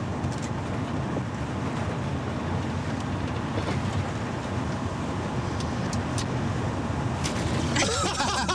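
Steady road and engine rumble heard from inside a moving car's cabin, with a few faint clicks. Near the end, a voice and music come in.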